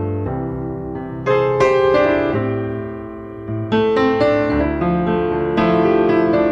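Piano music: chords are struck every second or two and left to ring.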